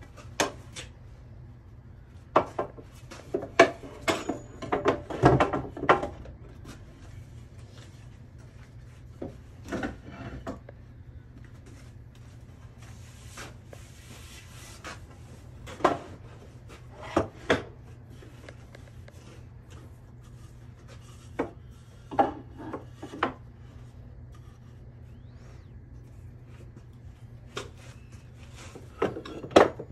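Wooden boards being handled: scattered knocks and clatters as boards are set down and shifted on the miter saw table and workbench, busiest in the first few seconds, with a brief scraping slide about halfway through. A steady low hum runs underneath.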